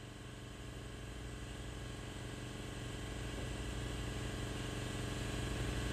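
A steady machine drone with a low pulse, growing gradually louder.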